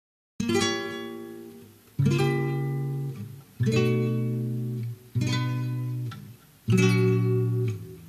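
Acoustic guitar strumming chords, one strum about every second and a half, each left to ring and fade. It comes in suddenly out of silence about half a second in, with no singing.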